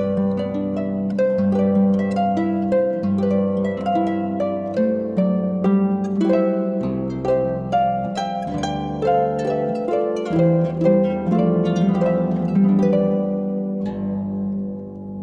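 Instrumental background music: a quick run of plucked-string notes over held low notes, dipping briefly near the end.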